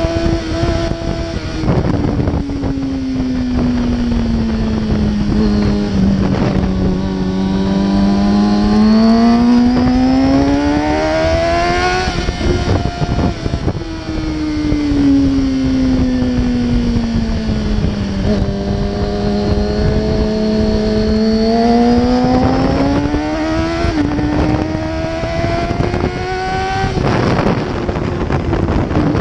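Kawasaki sportbike engine running under way, its note slowly sinking and then climbing again twice, with several sudden breaks in pitch as the throttle is rolled and gears change. Wind buffets the microphone throughout.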